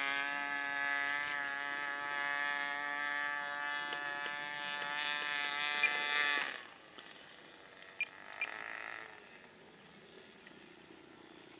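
Glow-fuel model airplane engine running at a steady, high, buzzing pitch in flight, stopping suddenly about six and a half seconds in.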